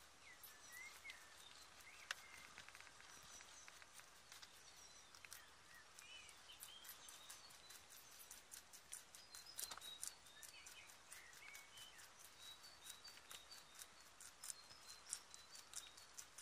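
A rabbit chewing carrot tops close to the microphone: a quick run of fine crunching clicks, denser in the second half. Faint bird chirps can be heard in the background.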